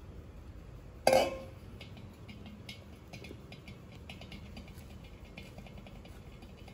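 Soaked channa dal (split chickpeas) tipped from a stainless steel pan into a plastic food processor bowl. About a second in there is one loud metallic clank of the pan, ringing briefly, followed by a scatter of light clicks and taps of grains and handling.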